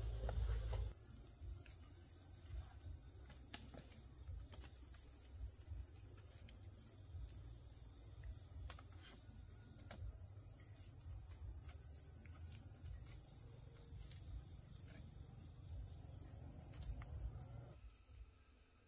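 Insect trilling steadily at a high pitch, with two brief breaks, over a low rumble; both stop shortly before the end.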